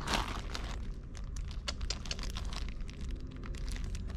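Small plastic cases and packaging being handled: scattered light clicks and faint rustling.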